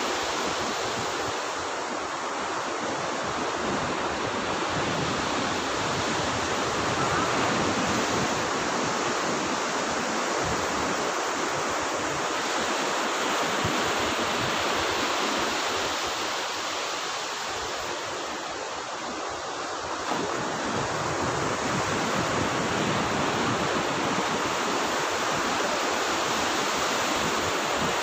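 Ocean surf breaking and washing up a sandy beach: a steady rush that swells and eases every few seconds.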